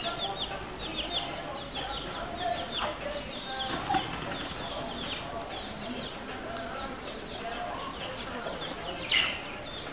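Small birds chirping over and over, in quick high chirps, with some wing flapping from the young fighting cockerels.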